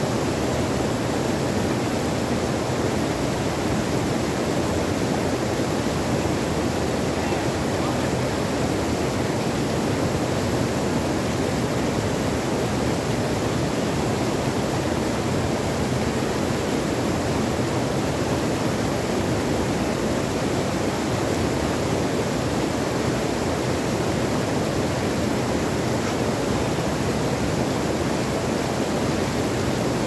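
A shallow rocky stream pouring over small cascades between boulders: steady, unbroken rushing water.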